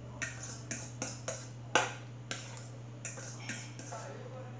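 Spoon scraping and tapping mashed sweet potato out of a stainless steel bowl: a string of short metallic clicks and scrapes, the loudest a little before the middle, over a steady low hum.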